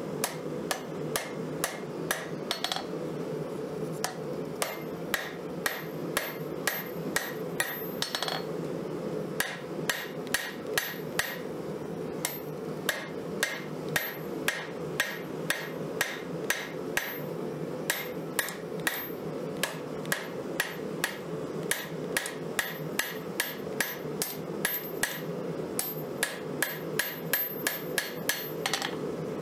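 Hand hammer striking a red-hot 5160 spring-steel knife blade on an anvil, forging it to shape: sharp blows at about three a second, in runs broken by short pauses. A steady low rushing noise runs underneath.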